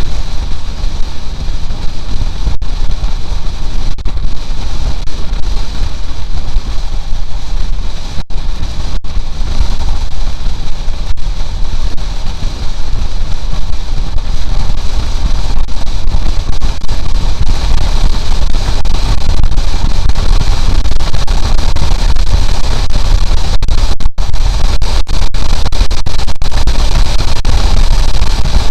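Heavy wind buffeting on the microphone over the steady running of a Honda CB750 motorcycle at cruising speed. It grows louder and steadier about halfway through.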